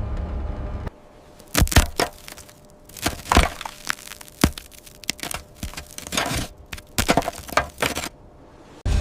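A rapid, irregular series of sharp cracks and snaps, about a dozen, between a low rumble that cuts off about a second in and comes back near the end.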